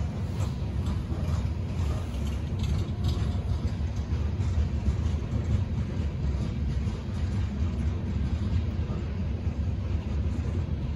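Loaded coal cars of a freight train rolling past: a steady low rumble of steel wheels on rail, with light clicks and clanks in the first few seconds.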